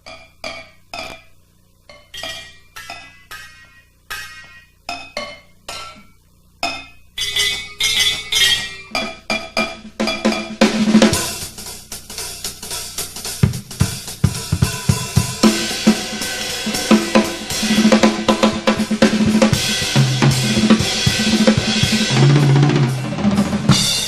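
Instrumental music with drums: short separate hits about twice a second, then a full drum-kit beat with bass coming in about ten seconds in and growing steadily louder.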